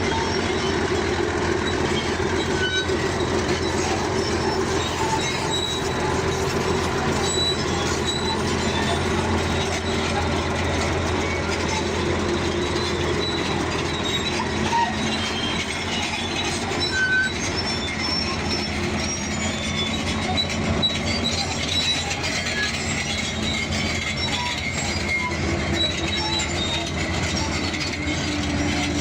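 Bulldozer working, its diesel engine running steadily under the clatter of its steel tracks, with short high metallic squeaks scattered throughout.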